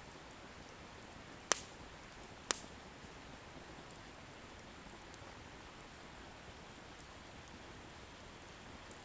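Wood bonfire burning with a steady hiss and faint crackling, and two sharp pops of firewood, about a second and a half in and again a second later.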